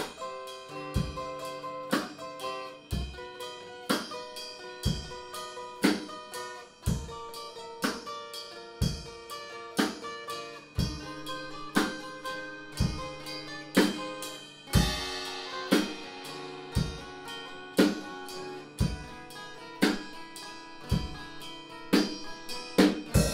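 Music: guitar and a drum kit playing a steady beat, a strong drum hit about once a second, with a cymbal crash about fifteen seconds in.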